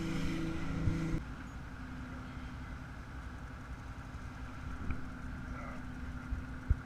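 A fishing boat's engine running under way with wind and water noise. About a second in, this drops to a steadier, quieter engine hum, with a couple of faint knocks.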